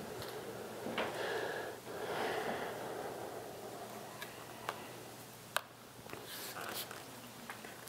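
Breathing and sniffing close to the microphone over handling noise from a handheld camera, with a few sharp clicks, the loudest about five and a half seconds in.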